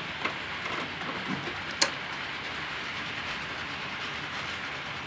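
HO-scale model freight train of tank wagons running on the layout's track: a steady rolling noise with a few light clicks, and one sharp click a little under two seconds in.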